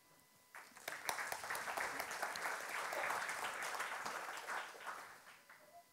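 Audience applauding: many hands clapping, starting about half a second in, building, then fading out near the end.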